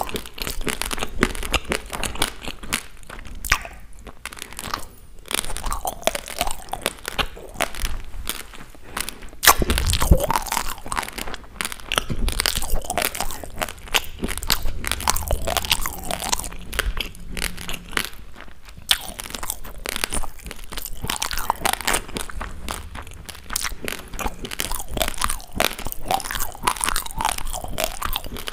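A person chewing a mouthful of raw basmati rice close to a clip-on microphone: dense, continuous crunching of the hard grains, with a louder crunch about ten seconds in.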